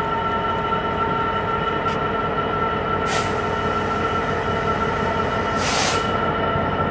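DB Cargo Class 66 diesel-electric locomotive (EMD two-stroke V12) approaching at the head of a freight train, its engine running with a steady whine over the rumble of the train. Two short hisses come through, one about three seconds in and a longer one near six seconds.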